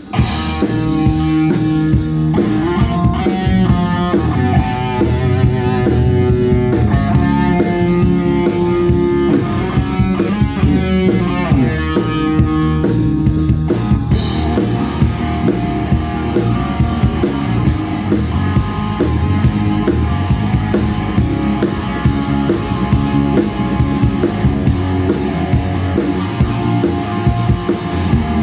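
Rock band playing live: guitars over a drum kit, with the music moving into a new section about halfway through.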